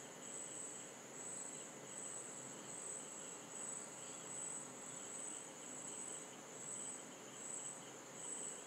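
A cricket chirping: a faint, high-pitched trill pulsing on and off about once a second over a low hiss.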